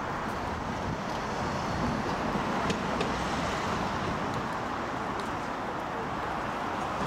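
Steady road traffic noise from cars passing, swelling slightly in the middle, with a few faint clicks.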